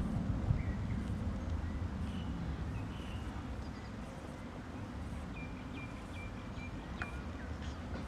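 Outdoor ambience: a steady low rumble with faint, short, high chirps, a run of them in the second half, and a single sharp click about seven seconds in.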